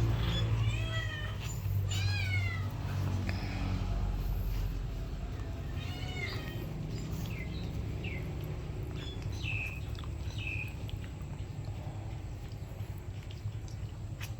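A dog whimpering: a string of short, high whines that rise and fall in pitch, several near the start and more from about six to eleven seconds in, over a steady low hum.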